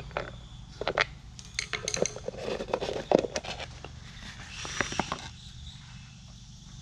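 A screwdriver backing screws out of a plastic air box lid, with irregular clicks and clinks of the tool and a loose screw on a metal workbench, then the hollow plastic lid lifted off and handled. The clatter dies down about five seconds in, over a low steady hum.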